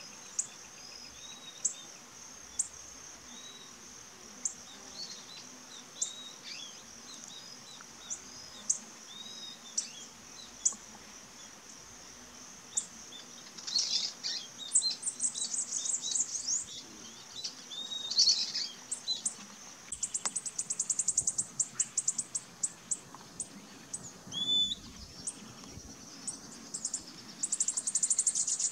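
Bananaquit singing: from about halfway through, a run of short, high-pitched, rapid trilled songs, with thin sharp chirps scattered before them. A steady high insect buzz runs underneath.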